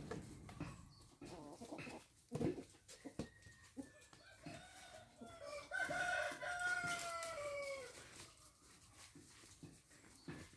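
A rooster crowing once in the middle, one drawn-out call of about three seconds that falls slightly in pitch at the end. Short scattered clicks and a sharp knock come before it.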